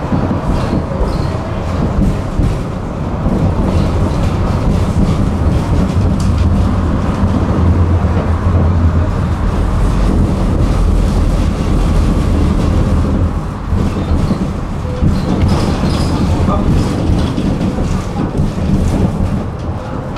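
Tram running along its track, heard on board: a steady low rumble of wheels on rail with scattered light clicks. The rumble eases briefly about two-thirds through, then picks up again.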